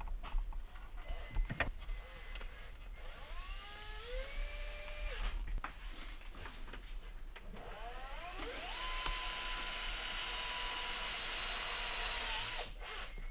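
A small electric motor spins up twice with a whine that rises in pitch and then holds. The first run is short; the second, about halfway through, holds steady for several seconds and then winds down near the end. A couple of sharp clicks come early on.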